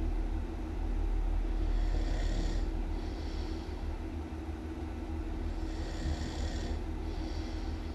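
A person snoring really loud and steadily. There is a continuous low rumble, and a pair of hissing breaths comes round about every four seconds.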